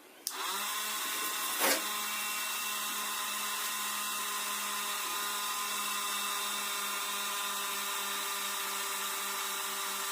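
A table fan's electric motor switched on: it spins up briefly in pitch, then runs with a steady pitched hum. There is a short knock about a second and a half in.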